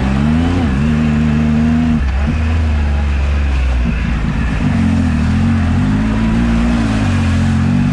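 Turbocharged Yamaha YXZ1000R side-by-side's three-cylinder engine running hard, heard from the cockpit, its revs rising and falling with the throttle. About two seconds in the engine note drops away and goes rough for a couple of seconds before the revs pick up again.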